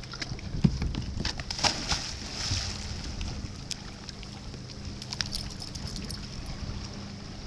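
A border collie leaping off a dock and splashing into a lake about two seconds in, then water sloshing as it swims, over a low wind rumble on the microphone.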